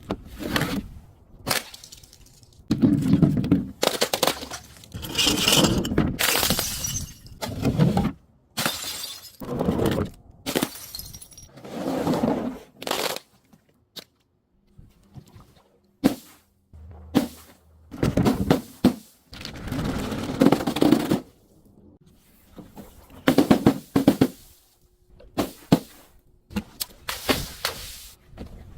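Glass bottles and other brittle objects being broken and crushed one after another: short sharp cracks and shattering alternating with longer crunching, with a brief lull about halfway through.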